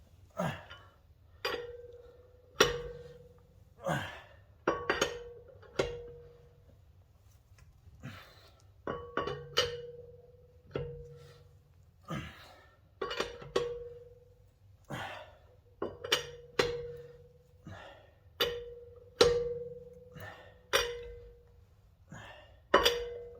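Repeated metal clanks from a hand wrench working the wheel, about one a second, each leaving a brief ringing note.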